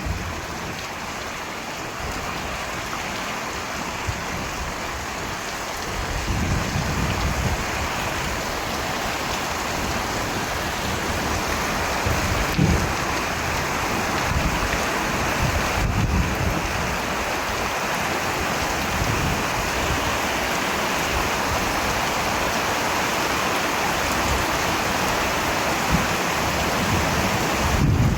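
Steady rain falling, with low rumbles of thunder now and then.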